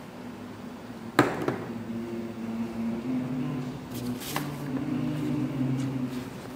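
A sharp click about a second in, then a sheet of painting paper being handled, with two brief rustles a little after the midpoint, over a steady low hum.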